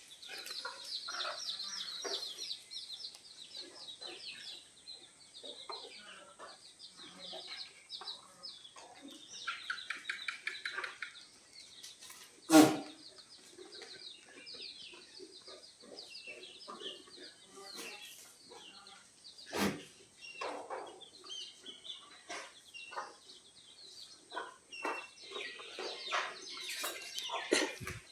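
Desi chickens clucking and calling in quick runs of short, high notes. Two sharp knocks stand out, one about halfway through and another a few seconds later, over a faint steady high tone.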